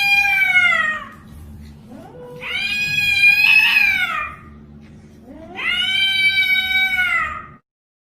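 A cat giving three long, drawn-out meows, each lasting about a second and a half to two seconds, with the pitch rising at the start and falling away at the end.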